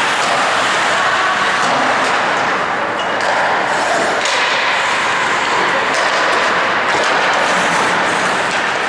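Ice hockey play in an echoing rink: a steady wash of skating and arena noise, broken by a few sharp knocks of sticks and puck.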